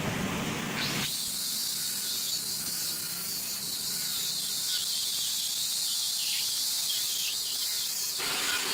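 A steady high hiss that starts about a second in and cuts off abruptly shortly before the end, after a brief lower-pitched noise at the start.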